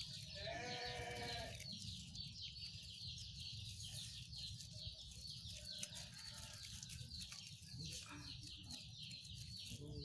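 A single wavering, bleat-like animal call about half a second in, lasting about a second, over steady high-pitched chirping.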